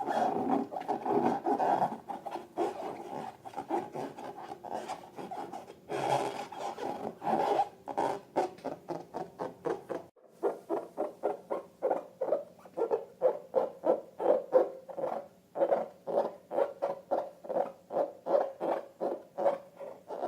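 Slime being worked by hand, squishing. It runs continuous for about ten seconds, then changes to a steady series of short squishes, about three a second.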